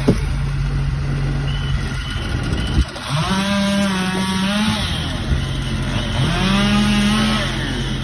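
A small engine running steadily, twice revving up to a higher pitch for about a second and a half (about three and six seconds in) and dropping back. A short string of high beeps and a sharp knock come about two to three seconds in.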